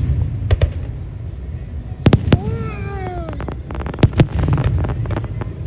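Fireworks display: sharp bangs of shells bursting, coming in close pairs about every two seconds, with bursts of crackling in between over a steady low rumble.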